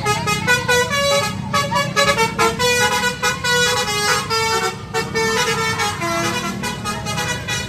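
A tour bus's basuri telolet horn playing a melody, one held note after another, over the low rumble of the bus engine.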